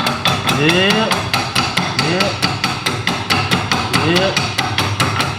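Fast, steady hammering on metal, about six or seven blows a second. It is the sound of driving a part out with a hammer and no proper punch.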